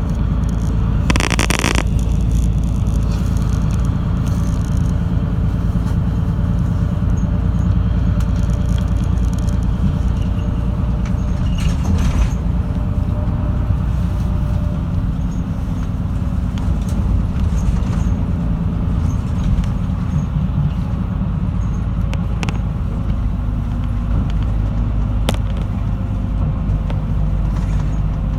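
Route bus heard from inside the cabin, its engine running steadily under road and tyre noise, with a short hiss about a second in and a few light clicks and rattles.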